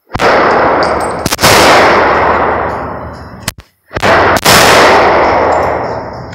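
Semi-automatic pistol shots at an indoor range: about four loud shots, two close together near the start and two more about four seconds in. Each is followed by a long ringing decay.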